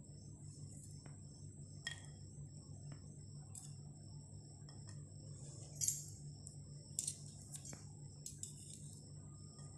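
Glowing wood embers set down one after another on a steel plate lid for dum cooking, heat from above, giving faint light taps and clinks every second or two over a steady low hum and a faint high whine.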